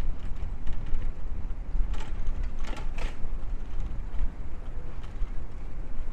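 Bicycle riding along a street: a steady low rumble of rolling and wind on the microphone, with a few short clicks and rattles about two to three seconds in.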